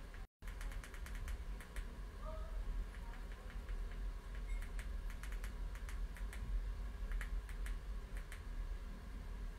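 Typing: scattered light key clicks, irregular, a few a second, over a low steady hum.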